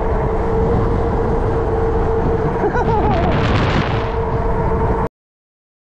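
Heavy wind buffeting on the microphone while riding an e-bike, a steady rumble with a constant whine underneath. It cuts off suddenly about five seconds in.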